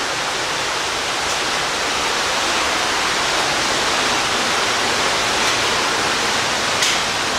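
Steady rushing of falling water, an even unbroken hiss.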